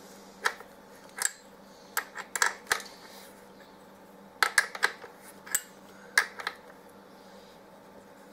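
Irregular sharp metallic clicks and taps as the rear brake pedal linkage and pushrod of a 2006 Kawasaki KX250F are handled and turned by hand. They come in small clusters and stop about six and a half seconds in.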